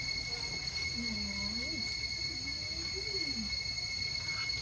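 A steady, high-pitched insect drone over a low rumble, with a faint pitched sound that rises and falls from about a second in to past the middle.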